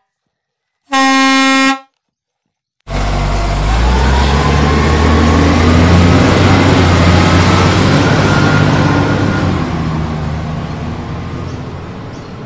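Dubbed truck sound effects: a single horn honk about a second in, then after a moment of silence a loud truck engine sound starts abruptly. The engine runs with a slowly rising whine and fades away over the last few seconds.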